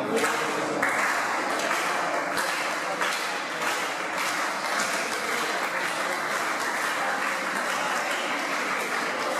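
Live wrestling crowd applauding: a steady wash of clapping with voices mixed in.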